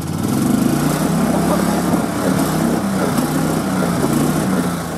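Gas golf cart engine revving under load while the cart is stuck on a mound with one wheel off the ground, the wheels spinning without getting traction. It revs up at the start, holds, and eases off near the end.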